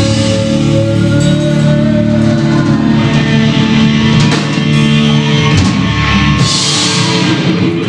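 Live rock band playing electric guitars, bass guitar and drum kit, with cymbals washing out loudly about six and a half seconds in.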